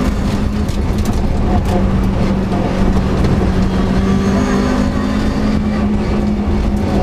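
Rally car's engine running hard at a nearly steady pitch, heard from inside the cabin over loud road and tyre noise, with scattered sharp ticks.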